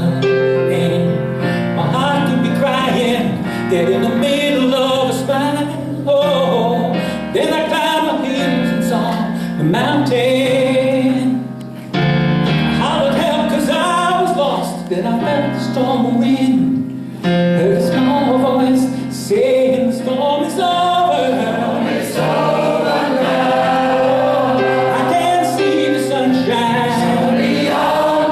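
Gospel song sung by a choir with a male lead voice, over piano accompaniment.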